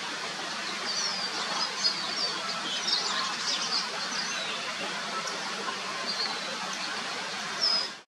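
Small birds chirping and twittering in quick, high-pitched calls over a steady outdoor hiss. The calls are busiest in the first half, with one short call near the end.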